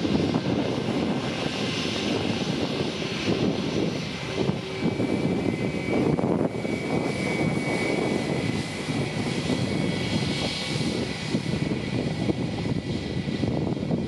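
Airbus A320 jet engines running at taxi power as the airliner rolls slowly past close by, with a thin steady whine most noticeable in the middle. Gusty wind buffets the microphone with a heavy rumble throughout.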